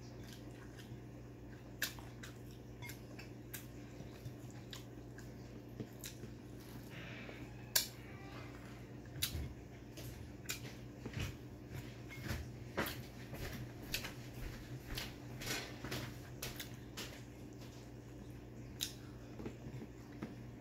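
Close-up eating sounds: chewing and lip smacks, with fingers picking at fried pork on a plate, many short sharp clicks that come thicker in the middle. A steady low hum underneath.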